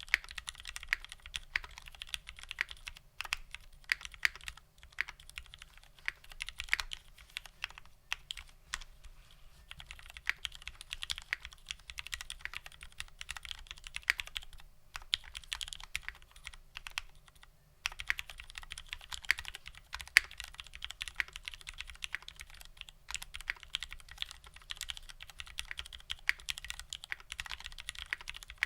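Typing on a custom mechanical keyboard with Cherry vintage MX Black linear switches on an aluminium plate and GMK keycaps: a quick, uneven run of key clacks, with brief pauses about 5, 10, 15 and 18 seconds in.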